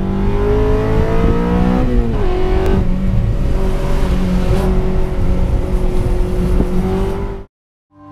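Honda Civic's K20 inline-four engine heard from inside the cabin on track, its pitch rising for about two seconds, dropping sharply, then holding fairly steady before it cuts off suddenly near the end.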